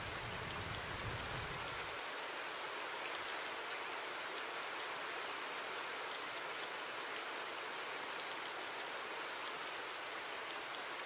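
Steady rain ambience: an even hiss of falling rain with light scattered patter. A low rumble underneath drops away about two seconds in.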